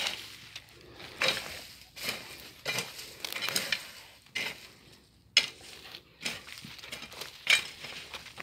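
A long-handled hand tool chopping and scraping through weeds and dry soil in a series of irregular strokes, roughly one a second, with the rustle of vegetation being torn and dragged.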